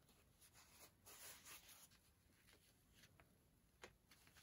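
Near silence with faint strokes of a paintbrush on watercolor paper, strongest about a second in, and a few faint ticks later.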